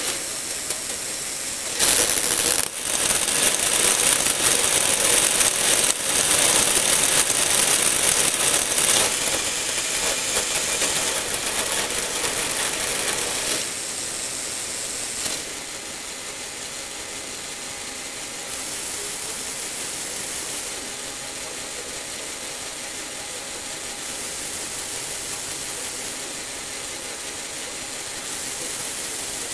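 Lego Technic plastic gear train of an eight-speed gearbox turned by an electric motor, running with a steady whirring clatter of meshing gears. It gets louder about two seconds in, then drops in two steps near the middle as the gear changes.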